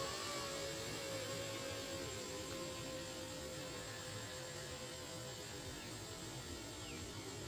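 Distant radio-controlled aircraft motor: a steady hum that slowly fades away over the first five seconds or so, over faint outdoor hiss.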